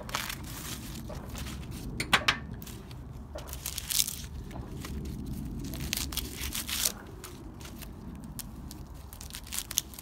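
Husks being torn and stripped by hand from a large ear of giant Peruvian corn (choclo): irregular tearing and rustling, loudest about two seconds in.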